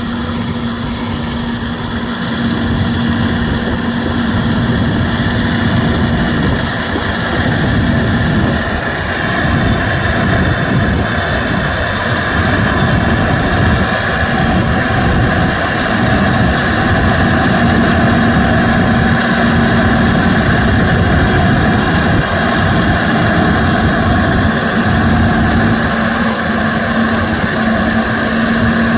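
Kukje KC100 six-row combine harvester running steadily: a constant mechanical drone with an even hum, getting a little louder over the first few seconds.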